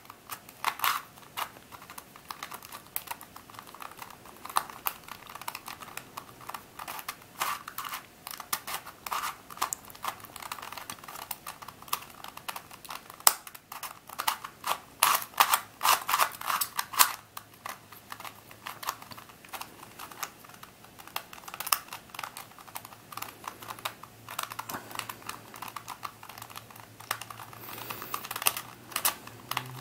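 Shengshou Crazy 2x2 plastic puzzle cube being turned quickly by hand in a scramble: rapid, irregular clicking and clacking of its layers and circular face pieces turning, in quick flurries with short pauses.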